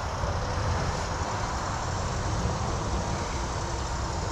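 A steady low rumble, even throughout, with a faint steady tone above it.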